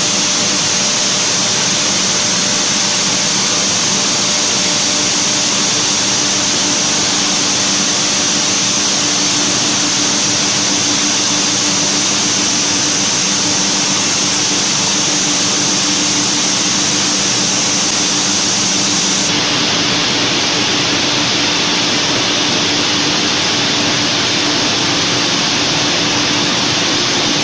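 Aluminium coil processing line running, metal strip feeding through its rollers onto a recoiler: a loud, steady machine drone with a low hum under it. The sound turns duller about 19 seconds in.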